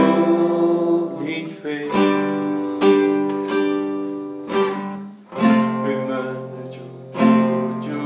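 Acoustic guitar strummed in sharp chord strokes, roughly one a second, each chord left to ring and fade before the next.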